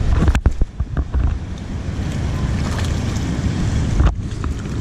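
Wind buffeting the microphone in a low rumble over rushing shallow river water, with a few sharp knocks in the first second.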